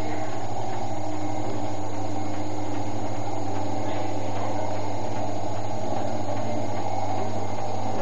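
Century-old shop coffee grinder running with a steady whirring hum, likened to a sewing machine.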